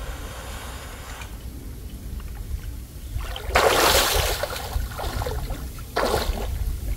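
Water splashing and sloshing in two bursts, a loud one about three and a half seconds in and a shorter one near six seconds, over a steady low rumble.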